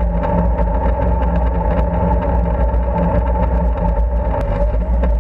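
Tank engine running steadily: a loud deep rumble with a steady higher whine above it.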